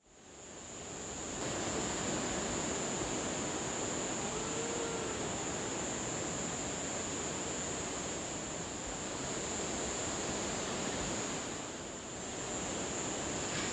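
Steady rushing noise of surf on a beach, fading in over the first two seconds and then holding even, with a constant high-pitched whine above it.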